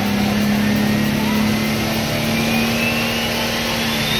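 Tractor-pull tractor's engine running loud and steady, with a high whistle that rises in pitch through the second half.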